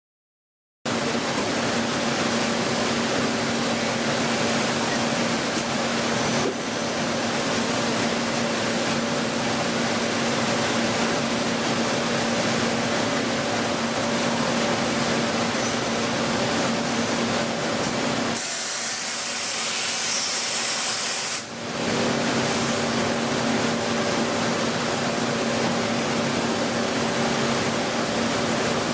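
CNC machine tool running, a steady spray of coolant hissing over a steady motor hum. Midway, for about three seconds, the low hum drops away and a higher, sharper hiss takes over.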